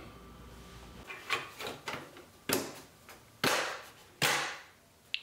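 Cover plate being fitted back over the stand mount on the back of a flat-screen TV: a series of separate light knocks and clicks, about seven in five seconds, as it is pressed into place.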